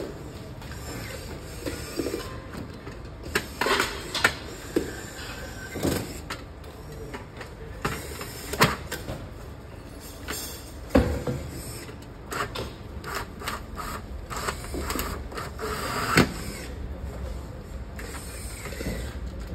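Assembly-line work noise: handheld electric screwdrivers running in short spurts, with scattered sharp knocks of metal lamp parts being handled over a steady workshop background.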